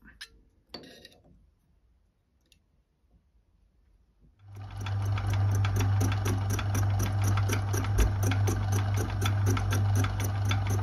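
A few short knocks, then about four seconds in the Myford ML7 lathe starts up and runs steadily: a low hum with a fast, even ticking from the spinning four-jaw chuck and drive.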